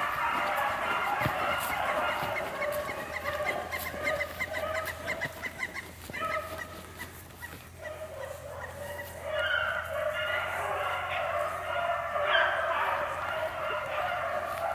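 A pack of beagles baying as they run a rabbit's track, many voices overlapping, with a fast string of short, choppy notes in the first few seconds. The chorus fades for a moment about seven seconds in, then swells up again louder.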